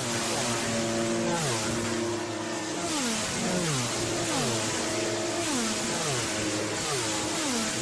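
Motorcycle engine revving again and again, its pitch holding and then falling away after each rev, with several revs overlapping.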